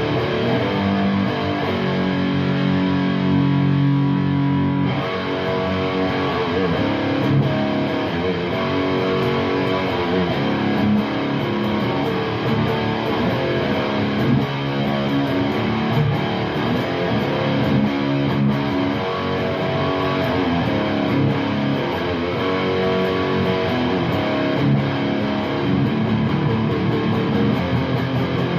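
Electric guitar played through an Orange Super Crush 100 amplifier on its dirty channel, giving a distorted tone. A chord is held ringing for a few seconds near the start, then shorter chords and notes change every second or so.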